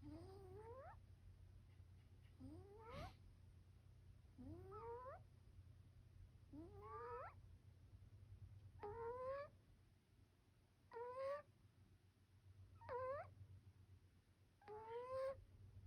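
Cornish Rex cat snoring: a soft, whistling squeak that rises in pitch with each breath, repeating about every two seconds, eight times.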